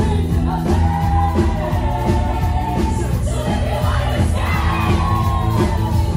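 Live band playing, with electric guitar, keyboards, drums and sung vocals over a heavy, steady bass.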